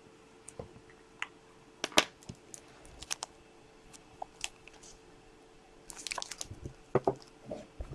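Hard plastic trading-card holders being handled: scattered small clicks and taps, the sharpest about two seconds in, and a flurry of light handling noise around six seconds in, over a faint steady hum.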